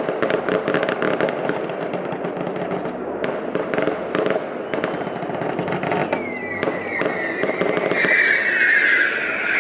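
Fireworks going off in a dense run of rapid crackling bangs that thin out after about six seconds, followed by a high whistling sound over the last couple of seconds.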